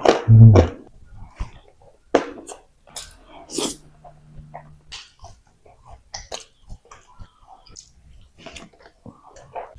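Close-miked eating sounds: irregular wet chewing and mouth clicks, with a louder bite in the first half second.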